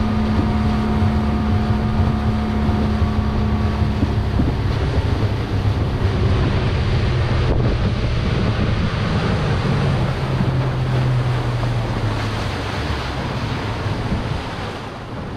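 Small motor launch under way: its engine runs steadily under heavy wind on the microphone and rushing water. The engine note changes about four seconds in, and the sound drops lower near the end as the boat nears a pier.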